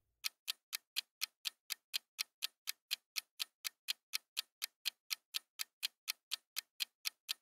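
Quiz countdown timer sound effect: a clock ticking steadily, about four ticks a second.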